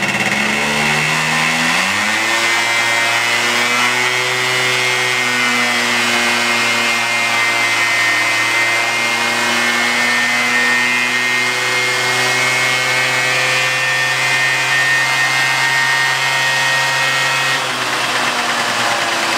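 Derbi Variant Revolution Start V two-stroke moped engine run at full throttle on an inertia dyno roller. The revs climb over the first couple of seconds, then hold nearly steady while the variator shifts and the roller speeds up, easing off slightly near the end. The owner calls the worn engine "pretty sad on the inside".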